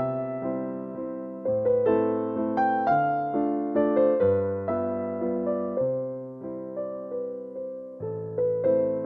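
Background piano music: a gentle melody over held chords, each note struck and then fading.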